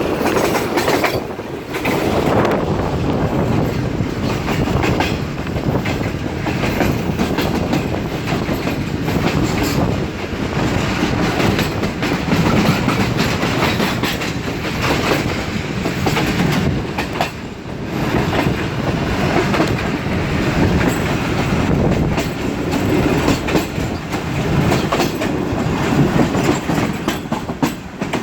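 Sir Syed Express passenger train running at speed, a steady rumble with rapid clickety-clack of the wheels over the rail joints.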